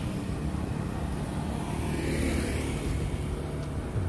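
Road traffic on a busy street: a steady low rumble of vehicles.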